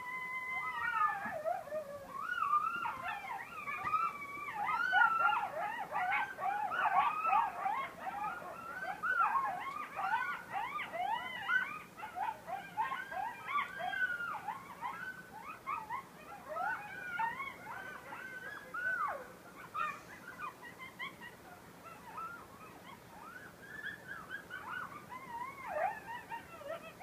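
A group of coyotes howling, many voices overlapping in quick rising and falling calls. It opens with one long falling howl, grows into a dense chorus, and thins out over the second half.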